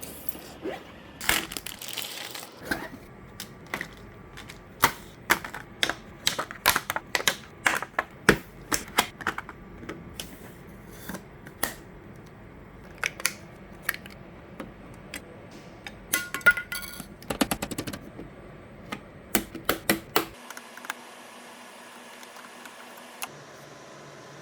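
Irregular clicks, taps and knocks of computer parts being handled and fitted during a PC build, some sharp and loud, coming in quick clusters. After about twenty seconds they stop and a steady faint hum remains.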